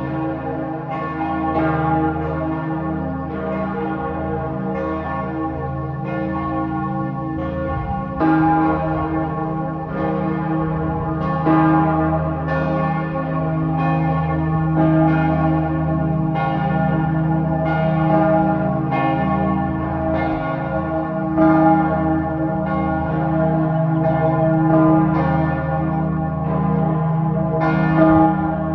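Several church bells pealing together. Their strikes come irregularly and overlap, about one a second, over a continuous low hum.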